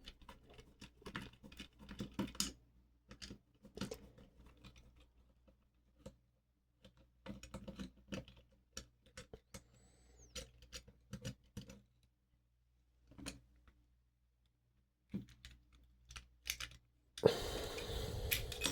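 Small metal parts and hand tools being handled while a pin-tumbler lock is taken apart: irregular light clicks and taps, then a louder scrape lasting about a second and a half near the end.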